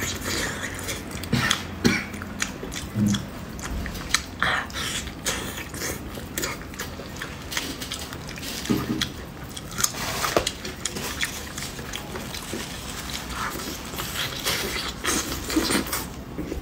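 Close-miked eating sounds of a person biting, chewing and sucking on braised pig's trotters: irregular wet smacks and clicks of the mouth on soft skin and meat.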